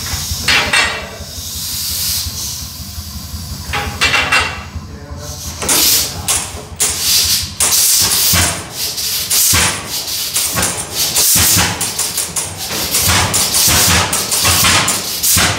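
Large antique tractor engine at a cold start. At first there is hissing over a slow, regular low thudding. About six seconds in, the engine fires with loud, sharp, irregular exhaust bangs.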